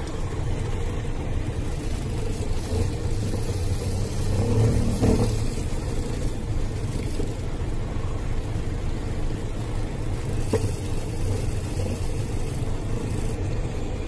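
Vortex mixer motor running with a steady hum, swelling briefly about four to five seconds in as a 50 mL conical tube with chloroform and cells is mixed on it.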